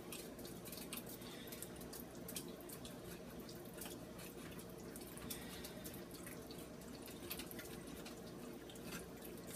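Pot of chili on the stove with faint bubbling and popping, many small pops over a low steady hum.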